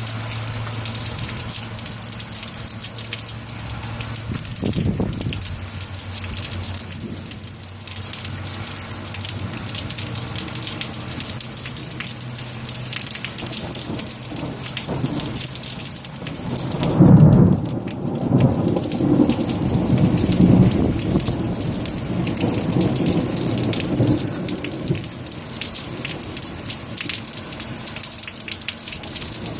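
Steady rain falling through a thunderstorm, with a faint rumble of thunder about five seconds in and a louder clap of thunder a little past halfway that rolls on in waves for several seconds.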